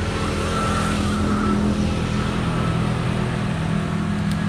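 An engine running steadily at an even low pitch, with a steady rushing noise over it.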